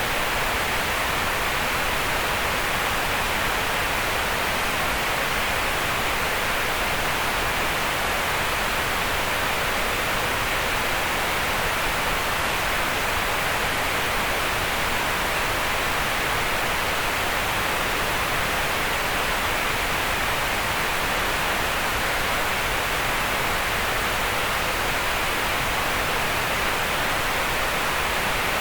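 Steady green noise: an even, unbroken hiss concentrated in the middle of the range, between about 500 Hz and 4 kHz, with less energy in the deep lows and the highest highs.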